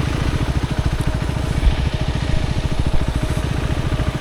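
Motorcycle engine idling steadily, its firing pulses coming in a fast, even beat.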